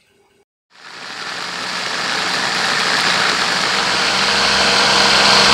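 Electric blender starting up less than a second in and running steadily, grinding fried peanuts with water into a paste for peanut sauce. It grows louder over its first couple of seconds and then holds, with a steady motor hum under the grinding.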